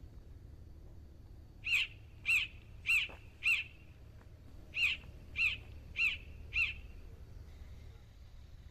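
A bird calling in two runs of four short, sharp calls each, about half a second apart, with a pause of just over a second between the runs. A faint steady low hum sits underneath.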